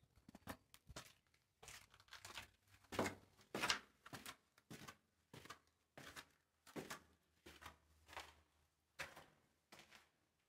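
Footsteps on gritty concrete steps and floor at an unhurried walking pace, about one and a half steps a second, inside a small concrete bunker room.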